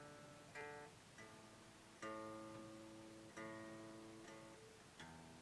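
Faint acoustic guitar strings plucked one at a time, five notes, each ringing and fading before the next, as the guitar is checked against a clip-on tuner.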